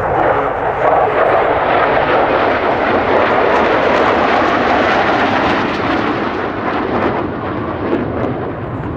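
Jet engines of a formation of four General Dynamics F-16 Fighting Falcons, each with a Pratt & Whitney F100 turbofan, making a loud, steady rushing noise as they pass, easing off slightly in the last few seconds as they move away.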